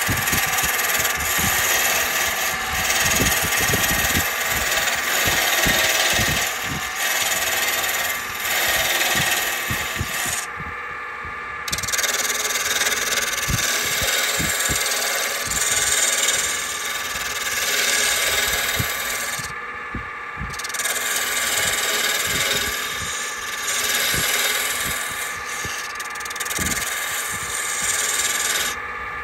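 Record Power wood lathe running while a hand-held steel tool cuts a spinning purpleheart handle: a steady motor hum under a rough scraping hiss that swells and eases as the tool bites and backs off, dropping away briefly twice.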